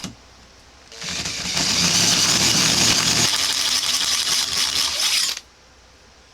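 Electric drill spinning a hole saw against a steel train rail for about four seconds, a steady loud grinding that stops abruptly. The hole saw is dull, and filing its teeth has not got it cutting again.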